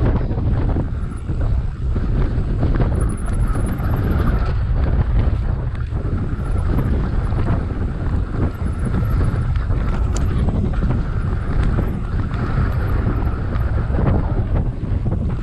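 Wind rushing over the microphone of a camera on a moving mountain bike, with frequent knocks and rattles from the bike as it rides over a rough, grassy track.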